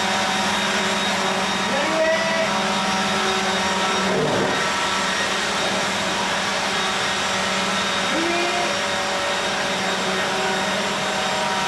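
Electric wind-effect blowers running steadily: a constant rush of air with a low motor hum.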